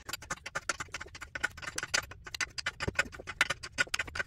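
Hand ratchet's pawl clicking in a quick, uneven run as it is worked back and forth, tightening the 18mm nut on the new control arm's outer ball joint at the hub.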